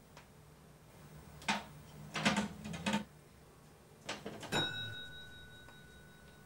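Spring-loaded metal letterbox flap clattering as things are pushed through it: a run of sharp clacks, and the last one leaves a ringing metallic tone that fades slowly.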